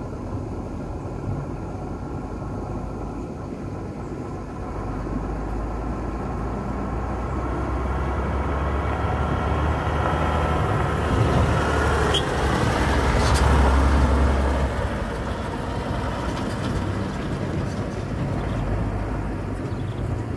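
Diesel dump truck approaching on a gravel road and passing close by: a low engine drone with tyre and gravel noise grows louder, is loudest a little past halfway with a couple of sharp stone clicks, then fades as it moves off.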